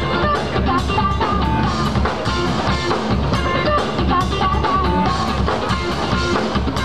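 Live rock band playing loud, with electric guitars and a drum kit keeping a steady beat.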